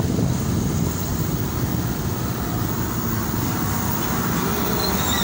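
Steady wind and road noise from a motorcycle riding in highway traffic, with heavy trucks close alongside.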